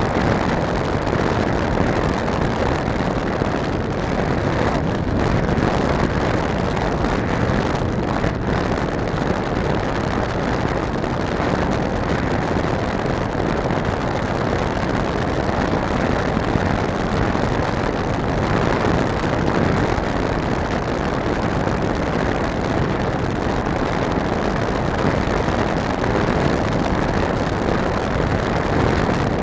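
Steady rush of wind over the onboard camera of a model airplane gliding with its propeller stopped, with no motor sound.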